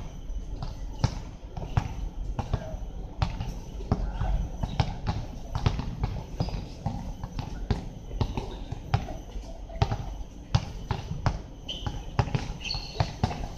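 Basketball bouncing on a hard court during play, an irregular run of sharp bounces, with players' voices faint underneath.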